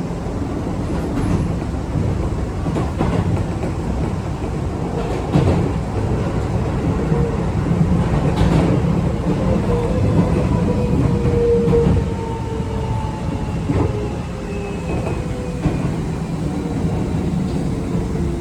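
Keio 8000-series train with a Toshiba PMSM VVVF drive, heard from inside a motor car while running: wheels clatter over the rails with scattered clicks. In the second half a motor whine slowly falls in pitch.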